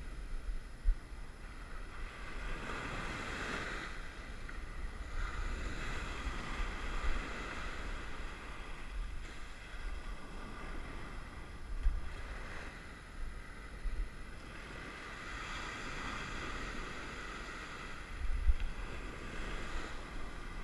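Ocean surf washing up the beach in repeated swells, with wind on the microphone giving a few brief low thumps.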